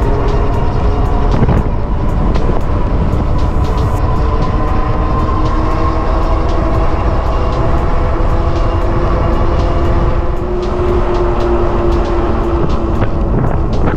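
Wind rushing over the camera microphone while riding a Super73 electric bike, with the hub motor's whine running underneath and drifting slowly in pitch as the speed changes.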